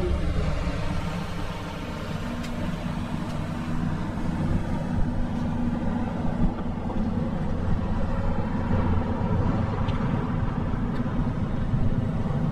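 Steady low rumble of motor traffic and road noise.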